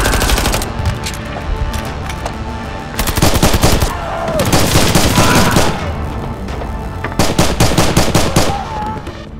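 Several bursts of rapid automatic gunfire, separated by short pauses, over background music.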